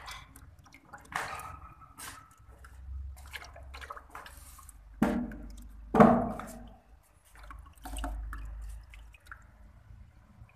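Oil being poured from a bottle into a voltage stabilizer's transformer tank: uneven dripping and splashing, with two louder sharp sounds about five and six seconds in.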